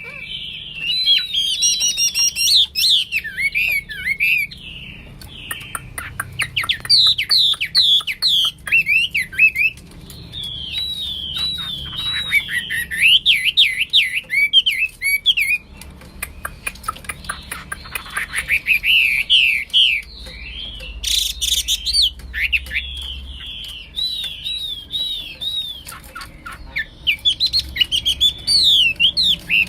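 Chinese hwamei (Garrulax canorus) singing energetically: loud, rapid runs of rising and falling whistled notes, delivered in several bouts separated by short pauses.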